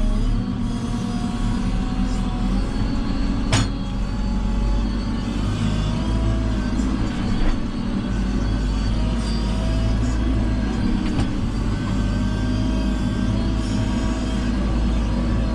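JCB 3CX backhoe loader's diesel engine running steadily, with a faint whine that wavers in pitch and a few sharp clanks, about one every four seconds.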